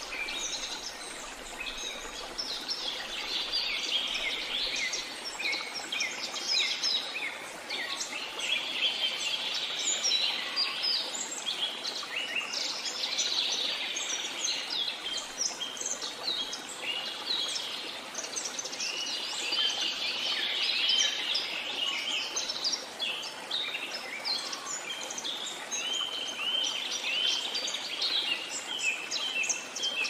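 Tropical rainforest ambience: many birds chirping and trilling, overlapping without pause, over a steady rush of falling water.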